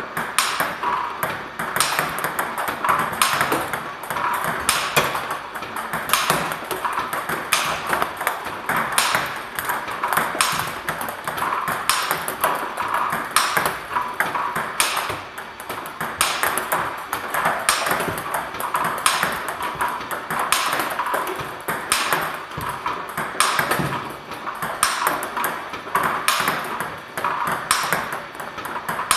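Table tennis balls clicking on the table and off a racket in a continuous drill against a ball-feeding robot, with a strong hit about once a second.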